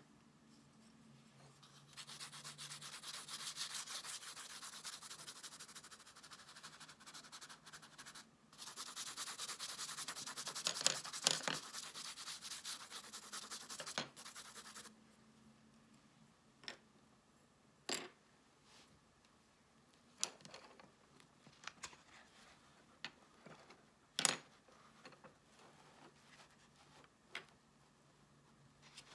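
Pencil crayon shading across sketchbook paper: two long stretches of fast, scratchy rubbing with a brief pause between them. After that, only a few scattered light taps and clicks.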